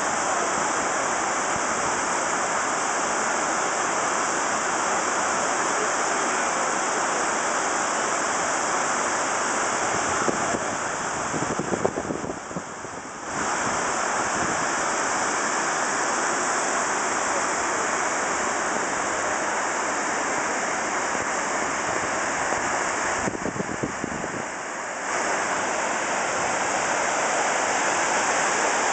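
Steady rush of water from the 9/11 Memorial South Pool's man-made waterfall, cascading down the pool walls into the basin. The rush dips briefly twice.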